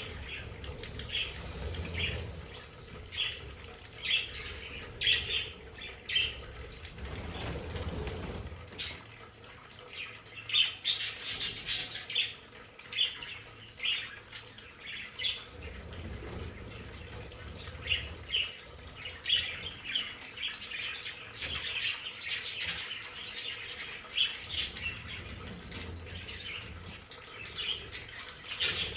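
A flock of budgerigars chirping and chattering in many short calls, with louder, harsher bursts about a third of the way in and again near the end.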